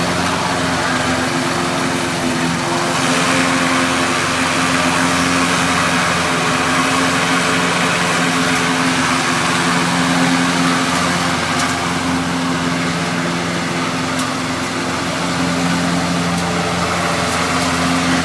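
Lawn mower engine running steadily at a constant speed, with a rushing hiss over it.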